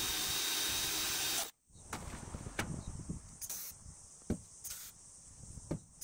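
A power tool or compressed air running with a steady hiss for about a second and a half, then cutting off suddenly, followed by a few light clicks and taps.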